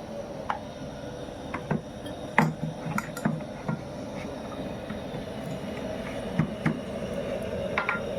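Scattered clinks and taps of utensils on a metal sac griddle over a steady rushing sound from the gas burner beneath it.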